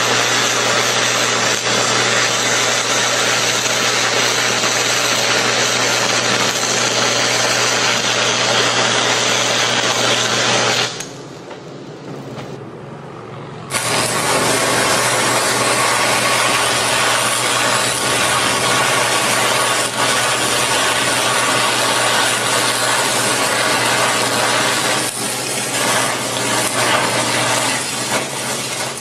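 Stick-welder arc crackling and hissing as a cutting and chamfering electrode burns into steel plate at 160 amps, over a low steady hum. The arc breaks off about eleven seconds in and strikes again about three seconds later.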